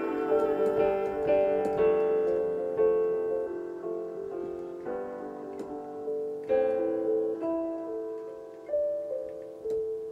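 Piano-style keyboard playing slow chords, each struck and left to ring and fade, closing out a song.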